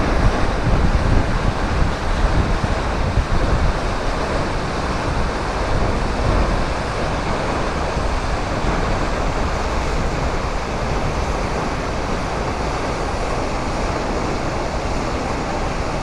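A waterfall rushing steadily, a constant noise of falling water. Wind gusts on the microphone for the first few seconds.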